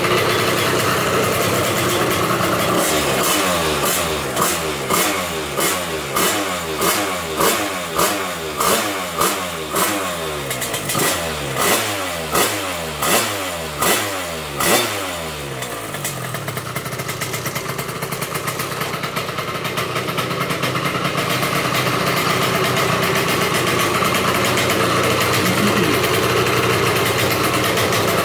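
Yamaha Zuma scooter's Polini Big Evo two-stroke engine with its Polini expansion pipe, revved in quick throttle blips somewhat under two a second, each a rising rev that drops back. After about a dozen seconds the blipping stops and it settles to a steady idle.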